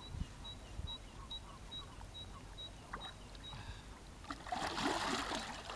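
A large sturgeon held at the surface for release, with a splash of water about four seconds in that lasts about a second; before that only faint water sounds.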